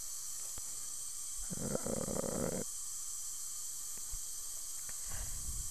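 A person's breath: a single rush of air about a second and a half in, lasting about a second, with a fainter one near the end, over a steady high hiss.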